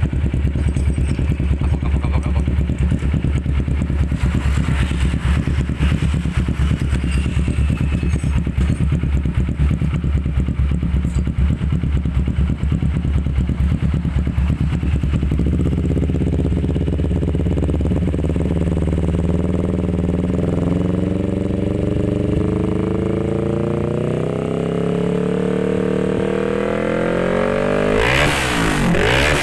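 Kawasaki ER-6f's 649 cc parallel-twin engine through an aftermarket F2Racing dual-muffler exhaust. It idles with a steady pulsing beat for about fifteen seconds, then revs slowly and steadily higher, and is blipped sharply a few times near the end.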